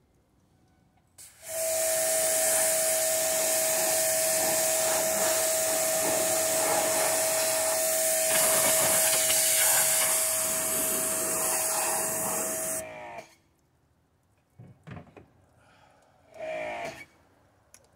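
An electric motor-driven fan, such as a blower or vacuum, runs for about eleven seconds. It has a steady whine over a loud rush of air, then spins down as it is switched off. A few light knocks follow.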